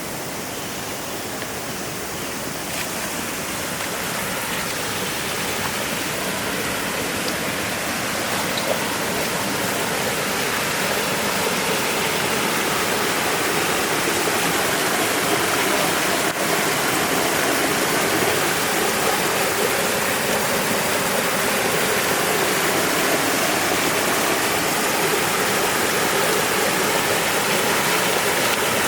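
River water rushing steadily, growing louder over the first ten seconds or so and then holding level.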